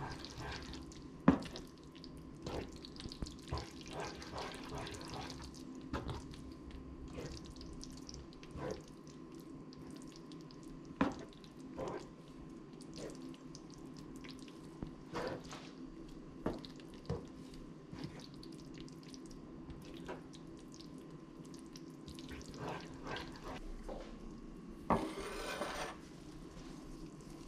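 Spatula stirring thick, creamy spinach mac and cheese in a pan: wet squelching and irregular clicks and scrapes of the utensil against the pan, over a steady low hum. A sharp tap about a second in is the loudest sound, and a longer scrape comes near the end.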